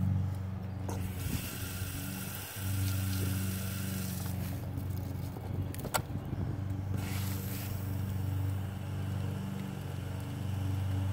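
Plastic garden hose connector being screwed onto a metal outdoor spigot and the spigot's valve handle worked: hissing and handling noise, one sharp click about six seconds in, and a brief hiss just after. A steady low hum runs underneath.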